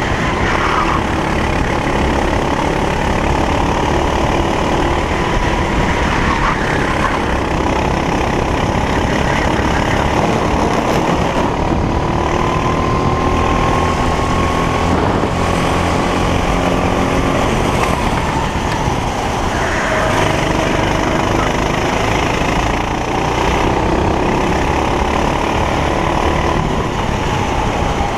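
Racing kart engine heard from onboard, running continuously with wind and road noise. Its pitch climbs slowly for several seconds before falling away about nineteen seconds in.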